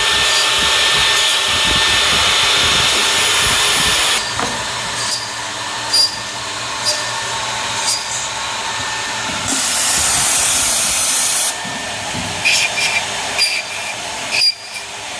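CNC dovetailing machine's router spindle cutting wood: loud for about four seconds, then running lighter with short sharp ticks about once a second, a second loud stretch of cutting, and a run of clinks near the end.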